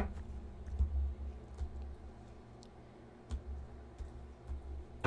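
Deck of tarot cards being handled over a table: irregular light clicks and taps of the cards, about one every half second to second, over a low rumble.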